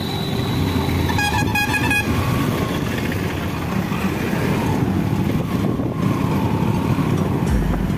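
Steady motorcycle engine and road noise while riding in street traffic, with a vehicle horn honked in a rapid run of short toots about a second in, lasting under a second.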